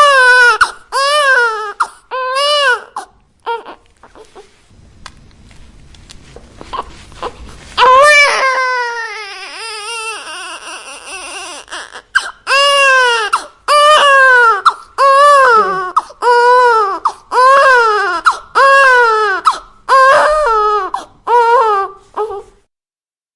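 Newborn baby crying in short wails about one a second, each rising then falling in pitch. After a few seconds the cries give way to faint whimpering. Then comes one long, drawn-out cry, and the rhythmic wails resume until they stop shortly before the end.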